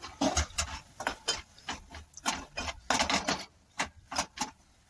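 Flat metal spatula stirring a thick coconut-and-khoa mixture in a metal pot, with an irregular run of scrapes and taps against the pot, about two or three a second.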